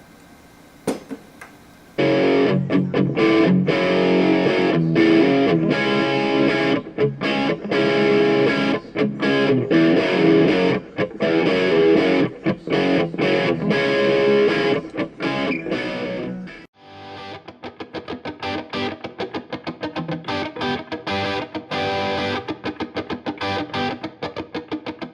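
Guitar music with a distorted electric guitar starts suddenly about two seconds in. Near the end it breaks off and gives way to a quieter, quickly picked guitar passage with an even pulse.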